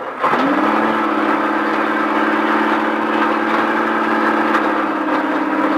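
Ford off-road race truck's engine pitching up about half a second in, then running at one steady pitch as the truck rolls along at low speed.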